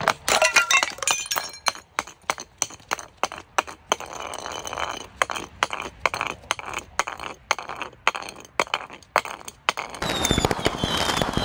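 Glass jars filled with water beads rolling and tumbling down concrete steps: repeated sharp glass clinks and knocks as they hit the step edges, with a rough grinding roll on the concrete in between. About ten seconds in a louder continuous rough noise sets in.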